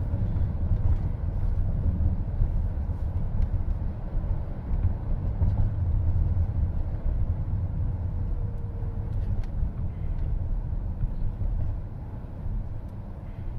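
Steady low road and tyre rumble inside the cabin of a moving car.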